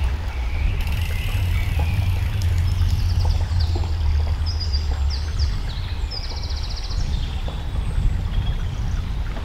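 Wind rumbling steadily on the microphone, with small birds singing over it: quick repeated high notes and trills.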